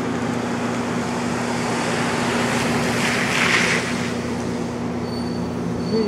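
Steady city traffic noise with a low hum, swelling as a vehicle passes about three to four seconds in; a thin, high, steady whine starts about five seconds in.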